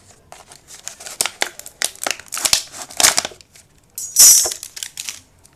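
Thin plastic water bottle crinkling and crackling as it is handled and turned over, a run of sharp crackles with a louder burst about four seconds in.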